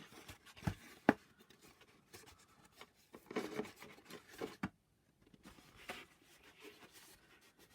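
Gluing tabs on card stock being scored with a scoring tool: short scraping strokes along the card, with a few sharp clicks, the loudest about a second in.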